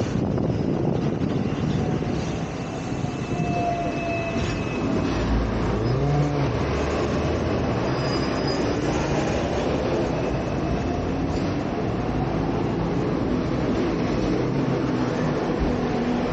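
Hong Kong electric double-decker tram running along its street track, heard on board: a steady rumble of steel wheels on the rails and the running gear, with a few faint whines over it.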